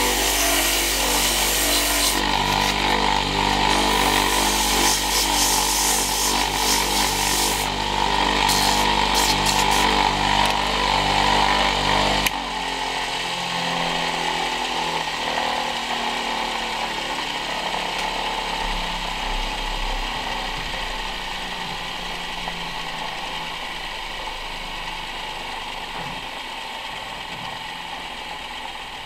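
Homemade mini lathe's electric motor running while sandpaper is pressed against the spinning wooden blank, giving a steady scratchy hiss over the motor hum. About twelve seconds in the sanding stops abruptly, and the lathe runs on alone, slowly getting quieter.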